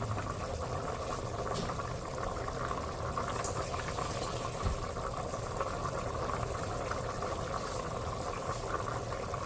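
Water with chickpeas and spices bubbling steadily at a boil in a cooking pot. It has come to the boil, ready for the rice to go in.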